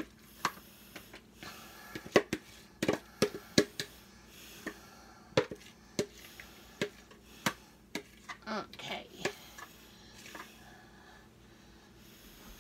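Metal spoon scraping chicken pot pie filling out of a plastic mixing bowl and spreading it into a raw pie crust: irregular clicks, taps and knocks of the spoon against the bowl and the pie dish.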